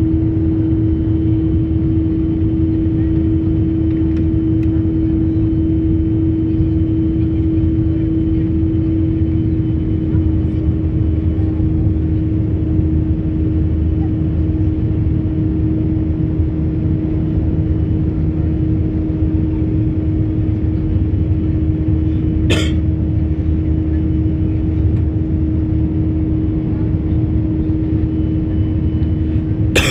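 Boeing 737's CFM56 turbofan engines at climb power after take-off, heard inside the cabin: a steady low roar with a strong steady hum running through it. A brief sharp noise cuts across it about three-quarters of the way through, and again at the end.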